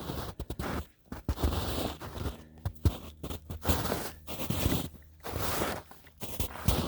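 Footsteps crunching through snow: a string of uneven steps.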